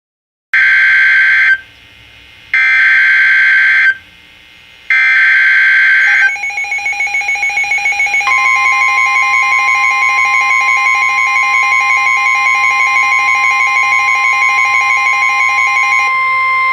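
NOAA Weather Radio Emergency Alert System alert for a Special Marine Warning: three short bursts of buzzy SAME header data, each about a second long with a second's pause between. A pulsing beep follows, and from about eight seconds in the steady 1050 Hz warning alarm tone sounds over it.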